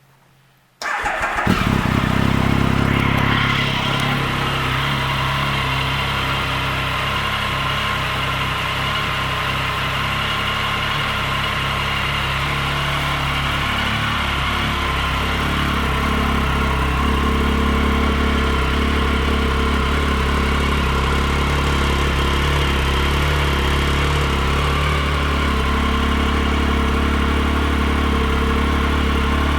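2013 Triumph Speed Triple 1050's inline three-cylinder engine starting about a second in, running a little higher briefly after it catches, then idling steadily.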